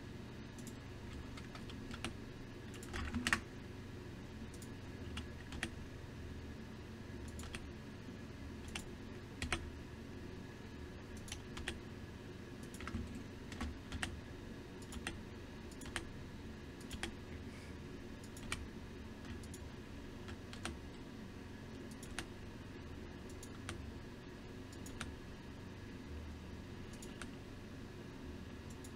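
Computer keyboard and mouse clicks, sparse and irregular at roughly one a second, with a louder cluster about three seconds in, over a steady low hum.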